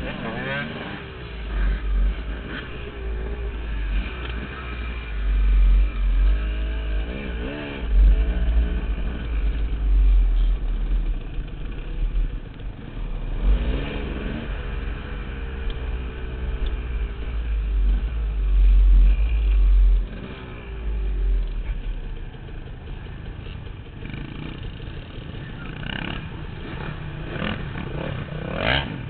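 KTM dirt bike engine revving up and down, with pitch rising and falling as the rider works the throttle and gears on a rough trail, under heavy wind rumble on the helmet microphone that eases off about two-thirds of the way through. A few sharp knocks and rattles come near the end.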